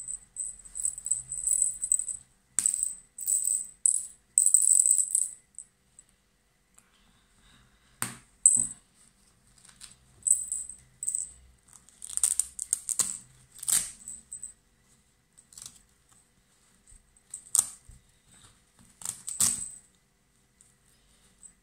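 Felt quiet book being handled: irregular bursts of high, raspy rustling and rattling as its fabric pieces and straps are moved, with a few sharp taps.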